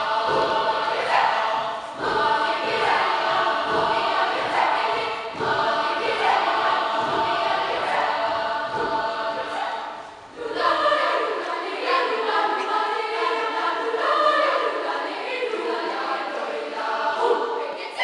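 Children's choir singing in harmony, many voices together. About ten seconds in the singing breaks off briefly, then comes back in higher voices only, with no low part underneath.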